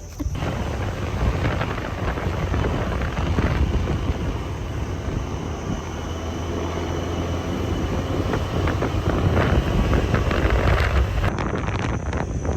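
Wind rushing over the microphone with a steady low rumble of engine and road noise, as when riding a motorcycle; it starts suddenly and runs on without a break.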